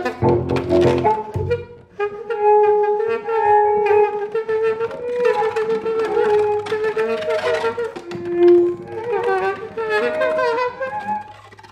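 Free-improvised music: a bowed double bass for about the first second and a half, then a saxophone holding long mid-range notes that waver and shift in pitch, fading near the end.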